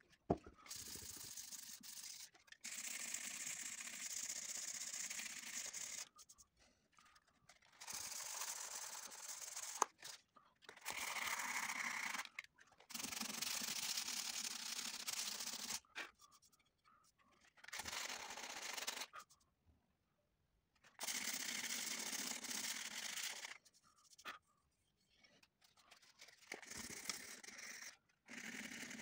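Sandpaper rubbed by hand over an old carved wooden cabinet part, a dry scratchy hiss. It comes in strokes lasting a few seconds, broken by short pauses.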